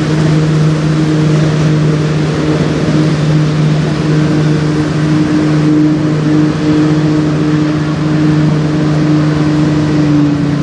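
Boat engine running with a steady low hum that dips slightly in pitch near the end, over a steady rushing hiss.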